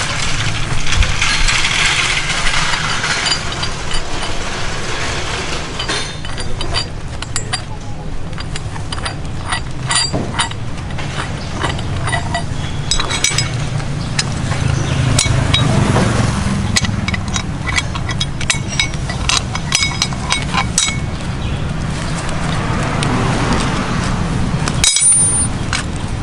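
Steel bow shackles and a snatch block clinking as they are handled and fitted to a tree trunk protector strap while rigging a double-line winch pull: a scattered series of sharp metallic clicks over a steady low background rumble.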